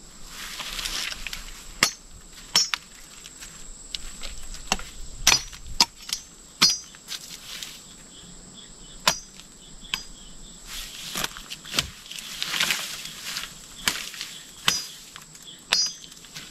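A blade chopping wood in about a dozen sharp, irregularly spaced strikes, several with a brief high metallic ring, mixed with a few longer rustling swells. A steady high insect drone runs underneath.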